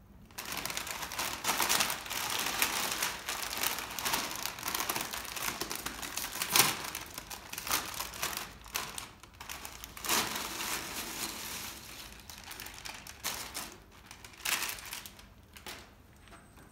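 A foil potato chip bag crinkling and crackling as it is handled and emptied, with chips spilling onto the glass bed of a copier. The sharp crinkles are loudest through the middle and die away near the end.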